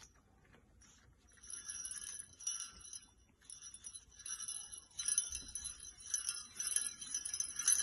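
Small metal jingle bell on a red rope dog toy jingling in repeated bouts as the toy is moved about. It begins about a second in and goes on in short bursts with brief pauses.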